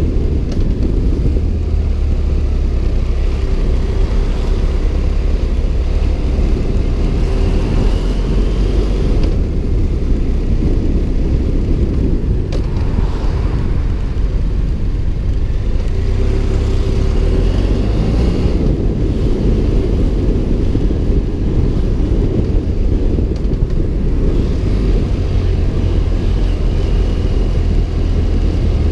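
BMW F 700 GS motorcycle's parallel-twin engine running at low town speed under steady wind rumble on the microphone, with a faint engine tone rising now and then as the throttle is worked.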